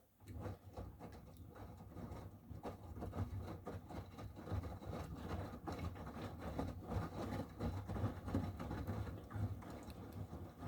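Miele washing machine running: a steady low motor hum with irregular knocking and patter as the drum turns the laundry. It starts suddenly from silence.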